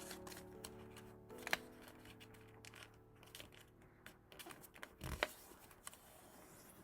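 Stiff cardstock being folded and creased by hand, with sharp paper snaps about one and a half seconds in and again near five seconds. Under it is soft background music of held chords that fades out in the first couple of seconds.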